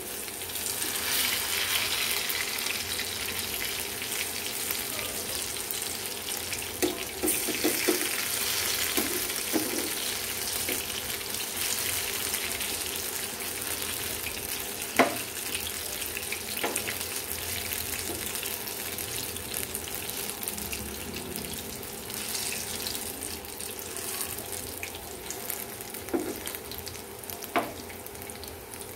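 Batter-coated onion rings frying in hot oil in a pan: a steady sizzle that eases a little toward the end. A few sharp knocks of the metal slotted spoon against the pan break through, the loudest about halfway.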